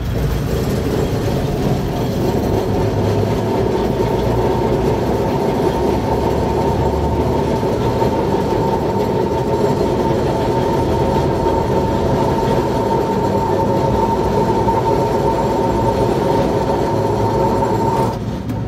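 Tram running along street track, heard from the driver's cab: a steady rumble of wheels on the rails with a steady whine over it, both easing off near the end.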